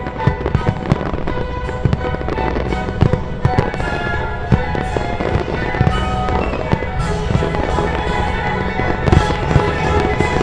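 Fireworks display: a dense barrage of aerial shell bursts, rapid bangs overlapping one another, with the heaviest bursts about three seconds in and again near the end. The music set to the show plays underneath.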